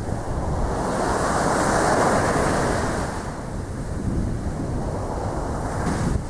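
Wind buffeting the microphone over choppy sea, with a rush of water noise that swells up and peaks about two seconds in, then eases off.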